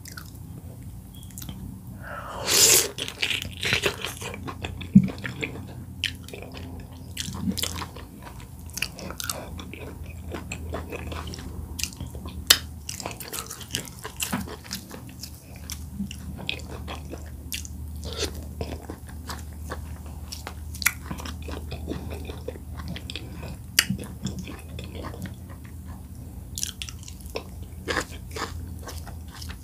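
Close-miked eating sounds: a person chewing and swallowing oat fufu with bitterleaf soup, many small mouth clicks and smacks over a low steady hum, with a louder bite about three seconds in.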